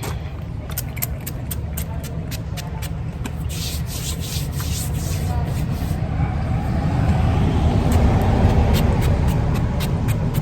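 Bug spray being sprayed onto skin in many short hissy spritzes, with a longer spray about four seconds in, over a steady low rumble on the microphone.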